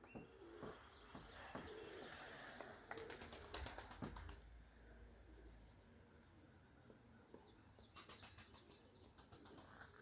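Woodpecker pecking at a hollow in a tree trunk: two short, faint runs of rapid taps, about three seconds in and again about eight seconds in.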